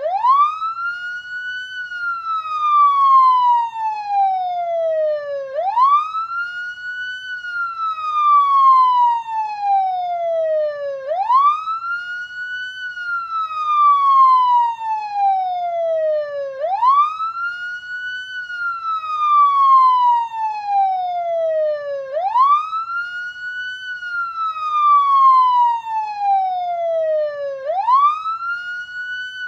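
Police siren sounding a slow wail. Each cycle rises quickly in pitch, then falls slowly, repeating about every five and a half seconds.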